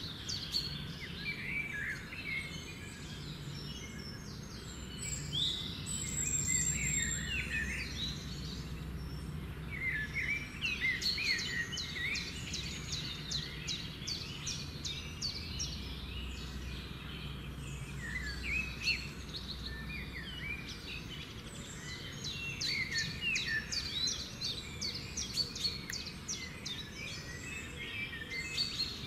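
Many small birds chirping and calling at once, quick overlapping chirps, busiest around ten seconds in and again in the last few seconds, over a steady low hum.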